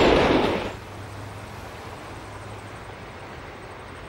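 Grain train hopper wagons rolling past on the rails, cut off abruptly under a second in, leaving only a faint, steady outdoor background hiss.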